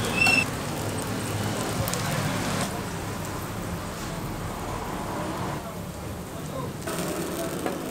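Food sizzling on a flat-top griddle: a steady crackling hiss that drops and rises in level a few times.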